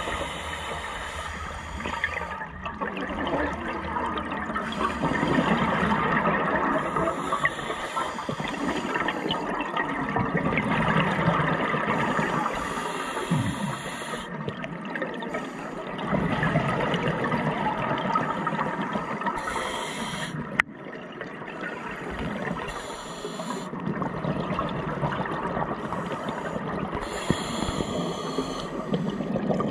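Scuba diver breathing through an open-circuit regulator underwater: short hissing inhalations every few seconds alternating with longer rushing gushes of exhaled bubbles. A single sharp click about two-thirds of the way through.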